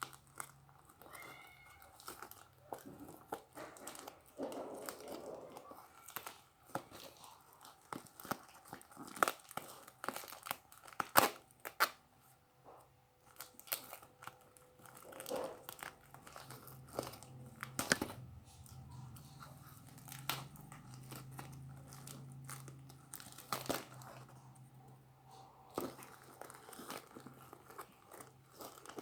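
Packaging being torn open and crinkled by hand: irregular tearing, rustling and crackling with sharp snaps scattered throughout.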